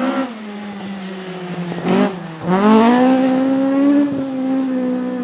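Rally car engine running at high revs. About two seconds in it breaks off briefly, then rises in pitch again and holds, louder, until it drops away near the end.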